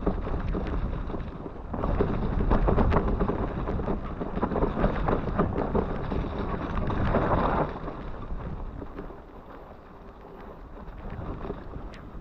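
Mountain bike riding down a wet, grassy singletrack: wind buffeting the camera microphone, with tyre noise and the bike rattling and knocking over bumps. Louder for the first seven seconds or so, then easing off.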